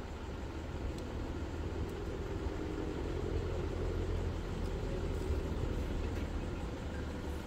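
Low, steady rumble of a motor vehicle's engine running, growing a little louder through the middle and easing off again.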